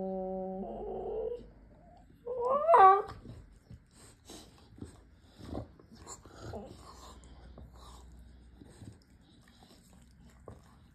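Bulldogs 'talking': a drawn-out moaning whine at the start, then a short rising yowl about two and a half seconds in, the loudest sound. After that come quieter snorts and snuffles.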